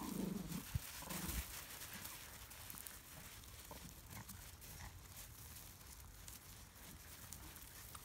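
Miniature schnauzer puppies growling briefly in rough play over a toy, a few short growls in the first second and a half, then only faint scuffling of paws on gravel.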